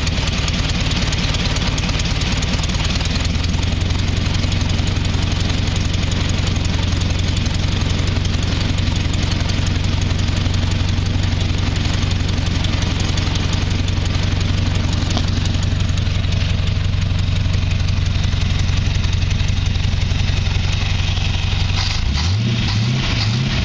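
Hot rod engine idling steadily at its first start after sitting all winter; near the end the revs rise and fall briefly.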